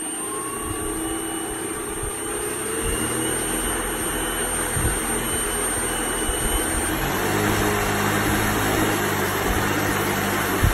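Small brushless outrunner motor of an RC plane bench-running under an electronic speed controller, spun up from a servo tester, with no propeller fitted. Its pitch glides up as it starts, then it runs steadily with a thin high whine, growing slowly louder as the throttle is raised.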